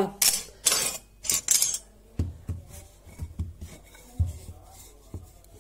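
Metal cookie cutters clinking against each other and the counter, a quick cluster of bright clicks. From about two seconds in, a wooden rolling pin knocks and rolls over a disc of shortcrust dough with soft, dull thumps.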